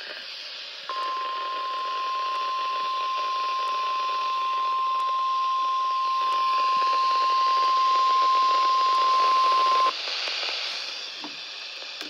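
NOAA Weather Radio 1050 Hz warning alert tone coming through a weather radio receiver over radio hiss: one steady tone held for about nine seconds, then cut off sharply. The broadcast tone signals that a warning message, here a tornado drill test, follows, and it sets off tone-alert receivers.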